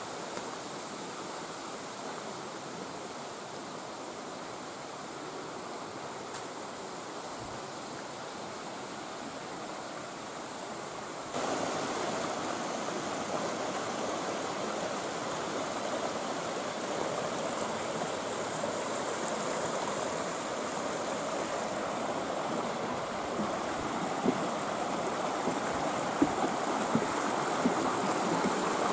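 Mountain stream rushing steadily over rocks. It gets suddenly louder about eleven seconds in, and a few sharp clicks come near the end.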